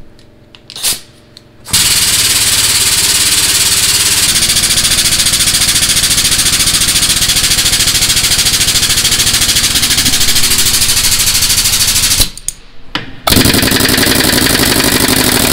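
Air tools hammering with a rapid, even rattle. A long run of about ten seconds stops, and after about a second an air impact wrench starts up again on the lug nuts of a semi-trailer wheel.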